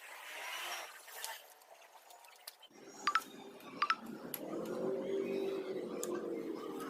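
Two sharp metallic clinks of hand tools on metal during motorcycle front-brake work, a little under a second apart, followed by a low steady hum that swells and fades.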